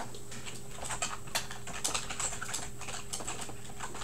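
Typing on a computer keyboard: irregular light key clicks, several a second, over a faint steady electrical hum.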